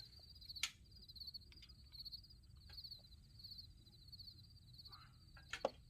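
Crickets chirping in a steady, pulsing trill, with two sharp clicks, one about half a second in and one near the end.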